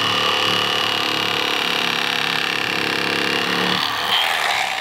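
Electric fillet knife running with a steady whine as its reciprocating blades cut a channel catfish fillet along the backbone. Its lower hum drops out near the end.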